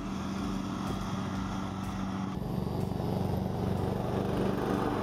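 Craftsman LT lawn tractor engine running steadily. About two seconds in it turns abruptly closer and louder, with a fast even pulsing.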